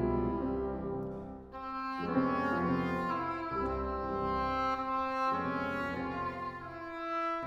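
Clarinet, English horn and piano playing Romantic chamber music: sustained wind notes over the piano. The sound dips briefly about a second and a half in, then a new phrase enters.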